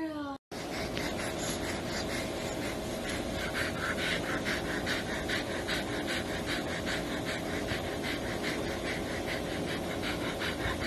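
Husky panting rapidly, about three to four breaths a second, with a steady hum underneath.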